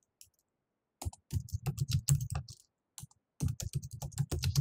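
Typing on a computer keyboard, entering router configuration commands. Quick runs of keystrokes start about a second in, break briefly near the three-second mark, then resume in a fast run.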